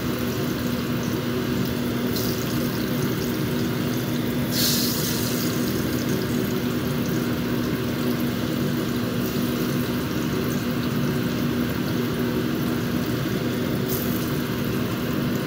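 Oil sizzling steadily in a frying pan as sliced bananas shallow-fry, with a brief louder hiss about four and a half seconds in and a steady low hum underneath.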